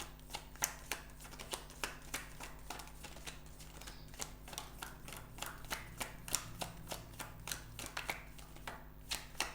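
Tarot cards being shuffled by hand: a steady run of quick, irregular card snaps and slaps, about three a second.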